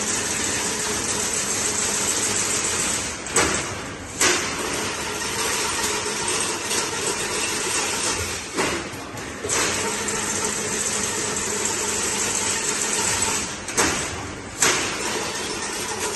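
Automatic chain-link fence weaving machine running with a steady mechanical clatter. About every five seconds the noise drops for about a second, with a sharp clank at the start and end of each dip. This happens three times.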